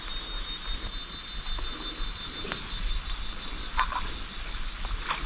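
Frogs calling: a steady high-pitched chorus, with a few short separate calls standing out in the second half.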